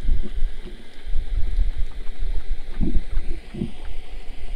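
Wind buffeting the microphone: a gusty low rumble that rises and falls. Two short, soft low sounds come near the end.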